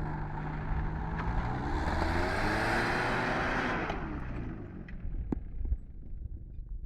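Off-road 4x4's engine revving up and easing off again, with a surge of noise at its peak about two to three seconds in; a few sharp knocks follow as it quietens.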